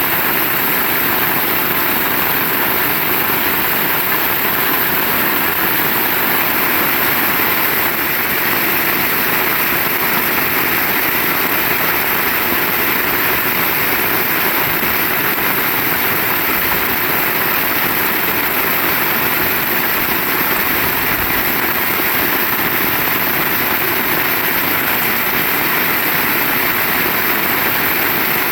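Heavy rain falling, a steady, unbroken hiss.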